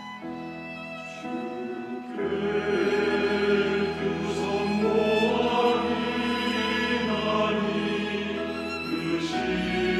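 Church choir singing a Korean hymn with instrumental accompaniment. It opens with a quieter instrumental passage, and the full choir comes in louder about two seconds in, holding long sung notes.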